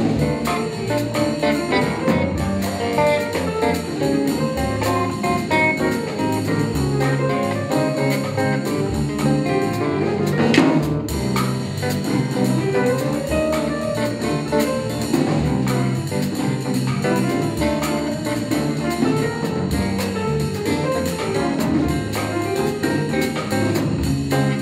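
A small jazz ensemble playing live: an electric guitar through an amplifier, with a drum kit. There is one sharp hit about ten seconds in.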